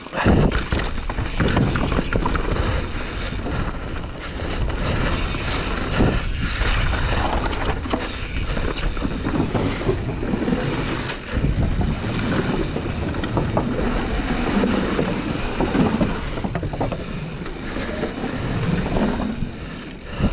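Mountain bike riding down a trail: tyres rolling over dirt, rock and wooden boardwalk slats, with the bike rattling and clattering over the bumps.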